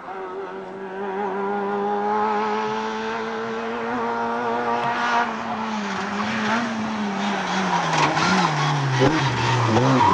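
Rally car engine at high revs on a special stage, held at a steady pitch and growing louder as the car approaches. Near the end the note falls in several steps as the car brakes and changes down for a hairpin, with sharp crackles.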